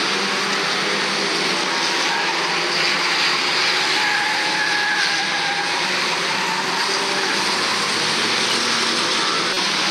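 A pack of stock cars racing round an oval track: many engines running at once in a steady, loud mix, their tones shifting as the cars accelerate and pass.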